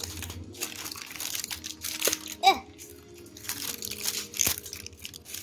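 Clear plastic wrap crinkling and crackling as it is peeled off in a long strip around an L.O.L. Surprise toy ball, in a string of irregular rustles. A short squeak comes about halfway through.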